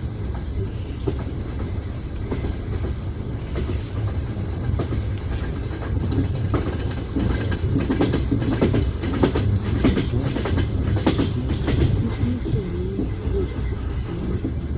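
Train wheels clattering over rail joints, heard from inside a sleeper carriage over a steady low rumble. The clicks grow louder and more frequent around the middle, then ease off.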